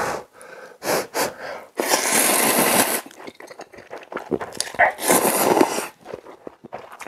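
A man blowing on steaming cup-ramen noodles and slurping them, two long loud slurps a few seconds apart, with wet chewing and mouth clicks between.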